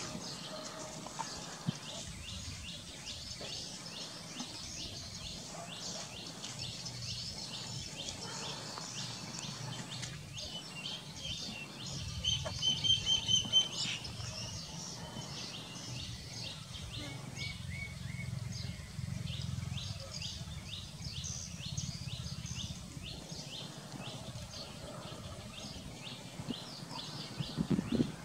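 Small birds chirping in quick repeated calls over a steady low outdoor hum, with a louder run of whistled calls about twelve seconds in.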